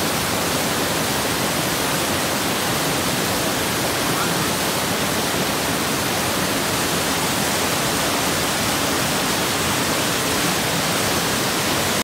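Waterfall pouring over rocks: a steady, even rush of falling water.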